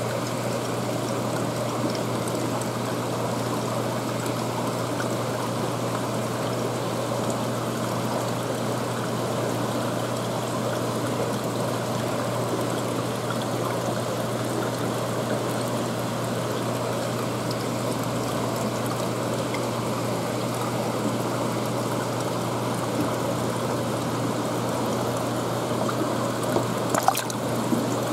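Seawater trickling and running steadily through a live-bait tank, with a steady low hum underneath; a few small clicks near the end.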